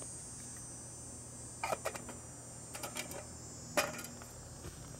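Light metallic clinks of a Toaks 900 titanium pot's lid being set on and the pot being handled: a few sharp clinks, the loudest about four seconds in, over a steady faint high hiss.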